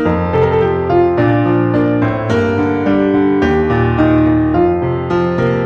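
Intro music played on a keyboard: a melody of short piano-like notes over lower held bass notes that change every second or so.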